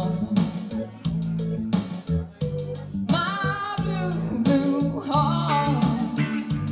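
A woman sings live, holding notes that bend in pitch, over strummed guitar.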